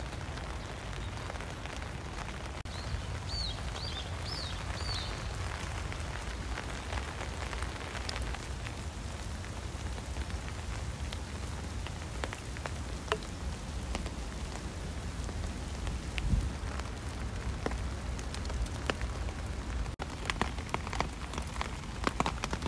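Steady rain falling on leaves and a wooden boardwalk, with scattered louder drops landing close by.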